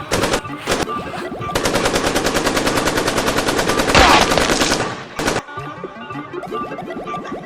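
Gunfire sound effects: a few single shots, then about three seconds of rapid automatic fire, loudest about four seconds in, ending with one last shot.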